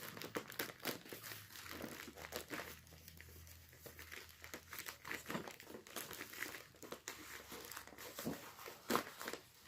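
Crinkling and rustling of packing material being handled, in irregular small crackles and clicks.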